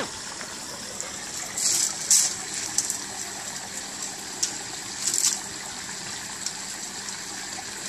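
Steady rush of running water in a garden fish pond, with a few brief splashes at the surface, the clearest about two and five seconds in.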